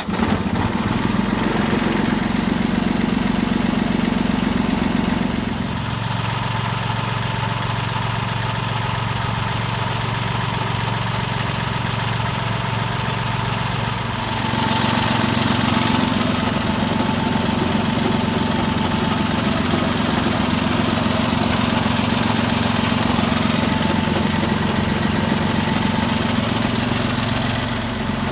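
Mitsubishi MT205 compact tractor's three-cylinder diesel engine running steadily. Its speed drops to a lower idle about six seconds in, rises again about halfway through, and drops once more near the end.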